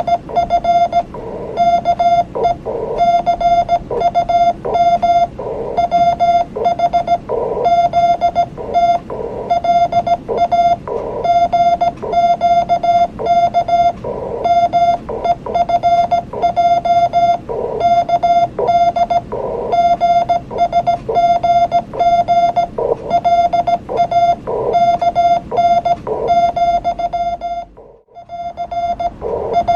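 Morse code in an amateur radio CW contact: a steady tone of about 700 Hz keyed on and off in dots and dashes. Rougher, noisy radio pulses sound between and under the tone, with a brief dropout near the end.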